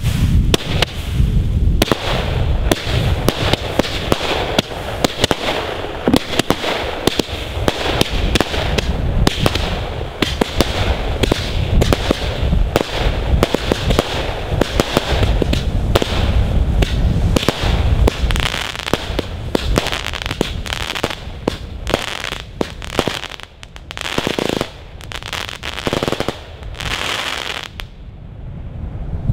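Helios (Weco) 'Sword of Fire' 62-shot firework battery firing: a fast, loud succession of shots over a steady hiss. The shots thin out over the last few seconds and stop about a second before the end.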